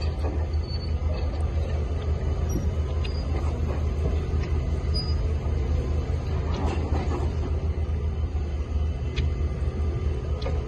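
Steady low rumble of heavy dockside machinery: a crane working a clamshell grab in a ship's hold full of bulk cargo, with a few faint knocks.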